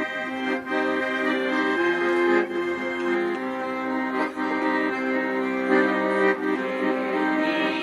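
Accordion music: sustained reedy chords with a melody on top, the notes held and changing every second or so.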